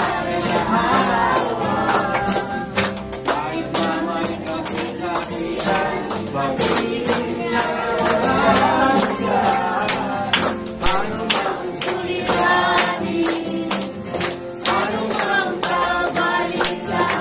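A congregation singing a Tagalog praise song together, with hands clapping along in a steady rhythm.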